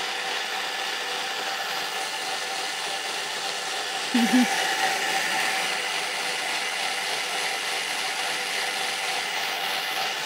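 Thermomix TM6 running at speed 8, its blade whirring steadily as it mixes a thin coconut-milk crêpe batter. A short voice sound comes about four seconds in.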